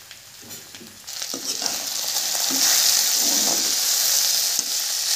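Strips of potato with turmeric and salt sizzling in hot oil in a kadai as they are stirred with a slotted metal spatula. The sizzle starts about a second in and builds to a loud, steady hiss, with scraping from the spatula against the pan.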